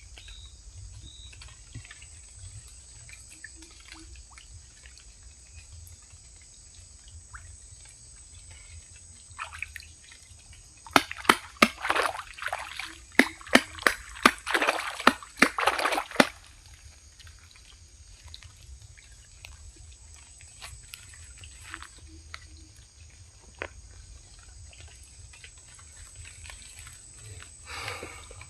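Water sloshing and splashing in a burst of about five seconds near the middle, with several sharp knocks and slaps among it. Before and after, only a faint steady outdoor background.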